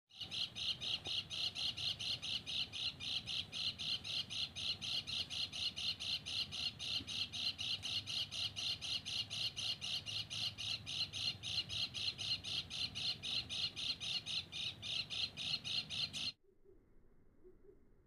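Bird call played as a lure for bird trapping: a rapid, perfectly even run of short high calls, about five a second, that cuts off abruptly near the end.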